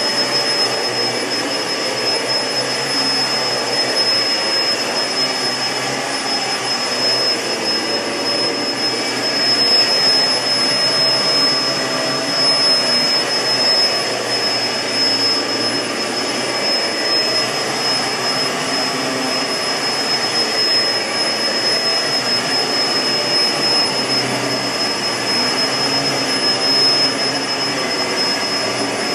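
Kenmore CrossOver Max bagless upright vacuum cleaner running steadily, its SIP blower motor giving a high, steady whine over the rush of air.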